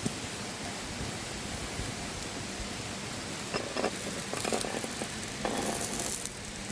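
Steady rushing of a river, with a run of louder crackling, rustling bursts from about halfway through that stop shortly before the end.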